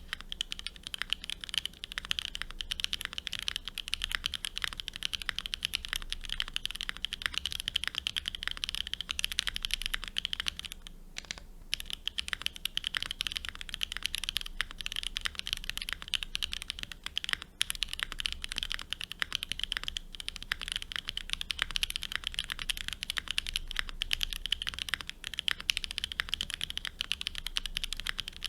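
Continuous fast typing on a QK65 MK3 custom mechanical keyboard: a dense stream of keystroke clicks, with a short break in the typing about eleven seconds in.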